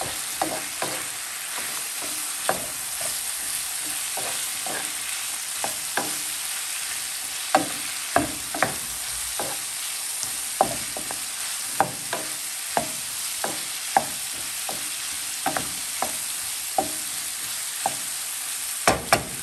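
Chicken, bell pepper, onion and green peas sizzling in a nonstick frying pan while a spatula stirs them, its edge clicking and scraping against the pan about once a second at irregular intervals.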